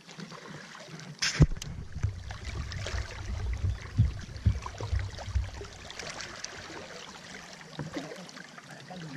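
River water stirring and lapping against a small boat's hull as a wooden pole is worked in the water. A sharp knock comes about a second and a half in, followed by a few seconds of low thumping rumble.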